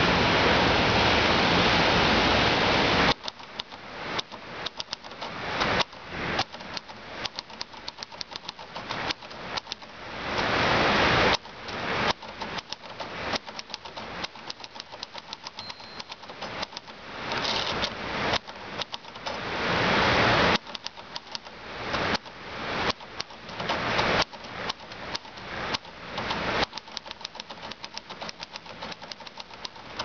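Steady splashing of a garden fountain, then, from about three seconds in, a 1943 Hermes Baby portable typewriter being typed on: quick, irregular runs of sharp key-strike clacks with short pauses, the fountain's water noise behind them.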